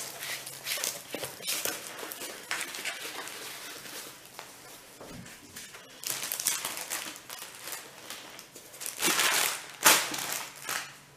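Plastic packaging rustling and crinkling as it is handled: a clear film-covered diamond-painting canvas and a padded mailer. The crinkling comes in uneven bursts, with a louder stretch near the end.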